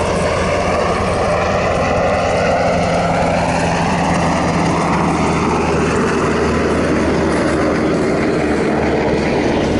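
Sikorsky S-70C helicopter in flight: steady rotor and turbine noise, with the pitch of its whine sliding as it flies past.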